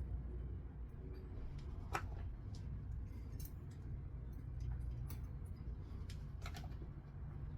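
Scattered small metallic clicks and taps of disc-brake rotor bolts being handled and run in by hand on a bicycle hub, the sharpest about two seconds in, over a steady low hum.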